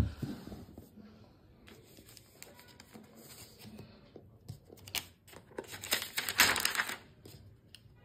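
Laptop packaging being handled: the crinkle and rustle of the protective wrap over a laptop in its box, loudest for about a second past the middle, after a sharp knock at the very start.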